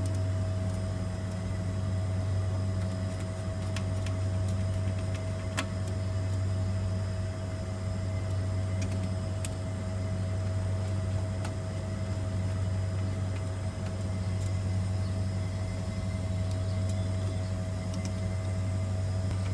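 Steady low machine hum with a constant higher whine above it, unchanging throughout, with a few faint clicks about five and nine seconds in.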